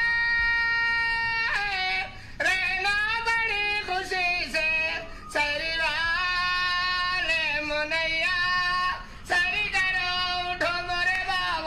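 Ringtone of a high-pitched voice singing unaccompanied: a long held note opens it, then wavering, ornamented phrases follow, broken by brief pauses for breath.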